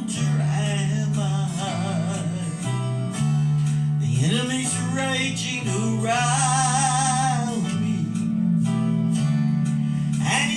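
Gospel song: a voice singing with vibrato over a steady instrumental accompaniment, with a long held note about six seconds in.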